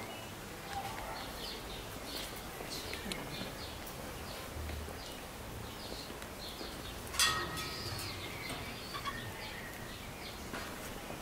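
Birds chirping in short calls, scattered all through, over steady outdoor background noise. One sharp knock with a brief ringing comes about seven seconds in.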